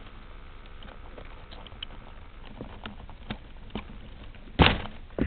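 Handling noise picked up by a crashed RC plane's onboard camera microphone: scattered clicks and rustles as a person reaches the plane in the grass, with one loud knock near the end as it is handled.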